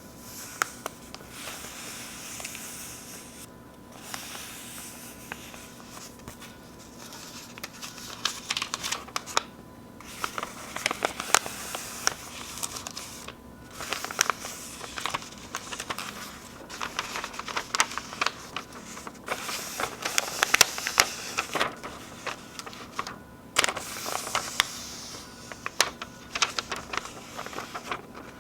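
Sheets of paper being torn and crinkled close to the microphone: a dense crackle of many sharp little snaps with rougher ripping spells, stopping briefly a few times.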